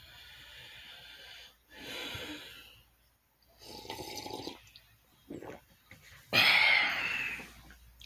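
A few irregular breath-like sounds, the last one loud and noisy, with near-silent gaps between them.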